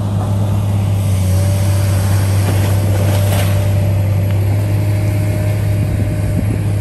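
A motor running steadily with a deep, even hum.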